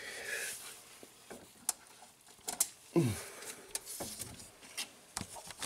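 Scattered light clicks and knocks of someone handling parts and moving about in a small workshop, with a short sound falling in pitch about three seconds in.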